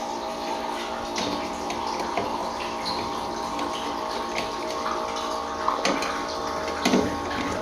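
Water running, as from a tap, over a steady layer of held tones, with scattered clicks and knocks, the loudest near the end.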